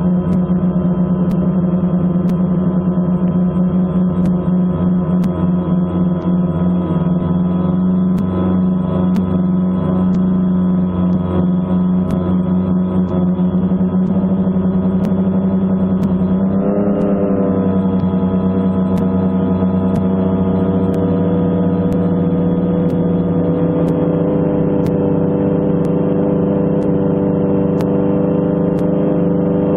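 Multirotor drone's motors and propellers humming steadily, heard from the drone itself; the pitch shifts briefly about halfway through as it climbs.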